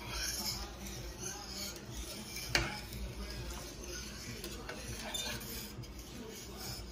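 A spoon stirring rice in coconut-milk water in a large metal stockpot, with light scraping and clinking against the pot and one sharper clink about two and a half seconds in.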